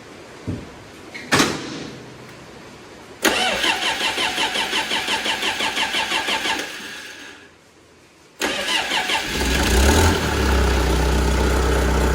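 Bobcat 853 skid steer engine being started after reinstallation with new front and rear main seals: a click, then the starter cranks it rhythmically for about three seconds and stops. It is cranked again and catches, settling into steady running.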